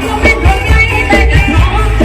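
Thai retro ramwong dance music from a live, amplified combo band, with heavy bass and drums keeping a steady beat under the melody.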